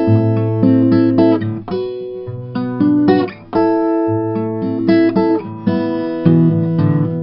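Background music: an acoustic guitar piece of plucked notes and chords.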